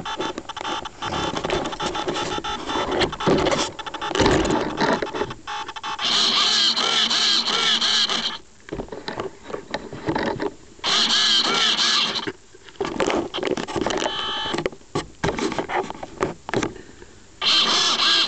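RC Super Cub's electric motor and propeller revving in three bursts of one to two seconds while the plane rests on the ground. The first few seconds hold irregular rattling and scraping noise as the plane comes down.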